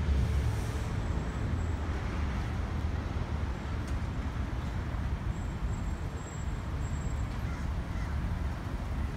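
Steady road traffic noise: a low, uneven rumble of passing vehicles under a constant hiss.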